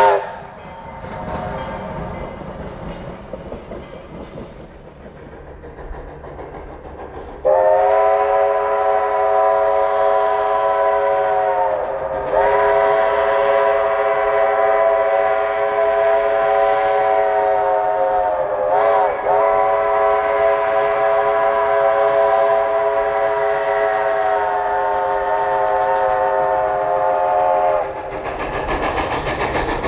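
Narrow-gauge steam locomotive's chime whistle, several notes sounding together, blown in one long drawn-out blast of about twenty seconds that starts suddenly about seven seconds in. The pitch sags briefly twice as the valve is eased. Before it there is only a low background rumble.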